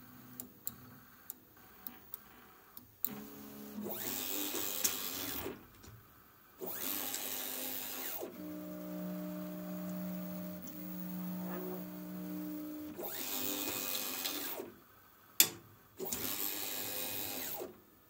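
Stepper motors of a Voron 1.8 3D printer driving its toolchanger through a tool-change cycle. A few light clicks come first, then several fast moves whose whir ramps up and down. In the middle a slower move gives a steady whine, and a single sharp clack comes about three-quarters of the way through.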